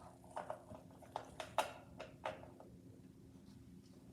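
Light plastic clicks and taps from a toy refrigerator and its pieces being handled: about six short knocks in the first two seconds or so, then quiet.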